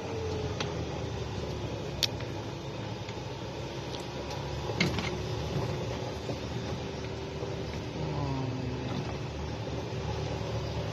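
Golf cart moving along a paved path: a steady motor hum with a faint steady whine over running noise, and a few light clicks and rattles from the cart.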